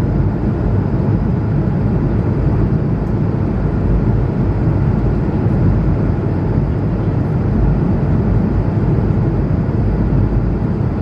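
Steady low cabin noise inside an Airbus A220-100 airliner, from its Pratt & Whitney geared turbofan engines and the air around the fuselage. It stays even throughout, with no change in level.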